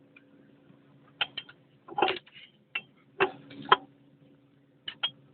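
Sharp clicks and knocks, about eight spread irregularly, from metal parts of an excavator's hydraulic drive motor being handled during disassembly, over a faint steady hum.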